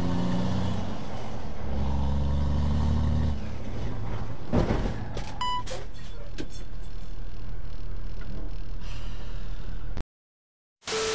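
Truck engine running and road noise, heard from inside the cab, with a low engine drone strongest in the first three seconds or so. A single knock comes about four and a half seconds in, followed by a short electronic beep.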